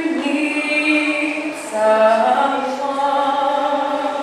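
Singing: a slow vocal melody of long held notes, with a new phrase starting on a lower note about two seconds in.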